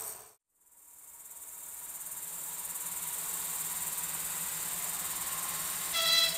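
Crickets chirring steadily in the evening, the sound fading back in after a brief silence at the start. Near the end a short pitched tone, like a distant horn, sounds once.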